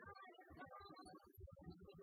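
A woman singing a pop song into a handheld microphone with instrumental accompaniment, recorded faintly.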